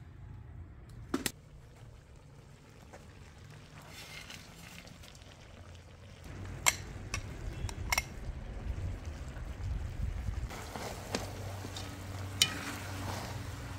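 After a quiet start with a single knock, a metal ladle stirs lamb and onions frying in a large aluminium pot, clinking sharply against its sides a few times. The meat sizzles steadily under the ladle.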